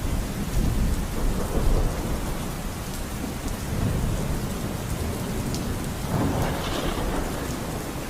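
Thunderstorm: steady rain with thunder rumbling low underneath, and a louder swell about six seconds in.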